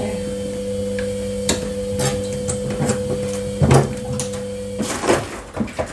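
Steady electrical hum from a kitchen appliance, cutting off about five seconds in, with a few knocks and clatters of things being handled.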